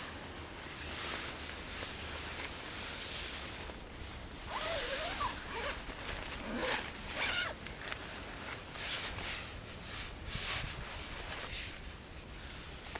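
A zipper being pulled in a series of short strokes, with fabric rustling.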